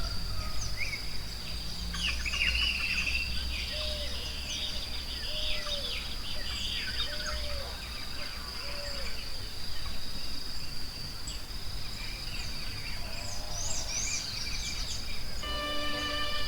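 Forest ambience: many birds chirping and warbling over a steady high-pitched insect drone, with a low arched call repeated four times about a second and a half apart. Soft instrumental music comes in near the end.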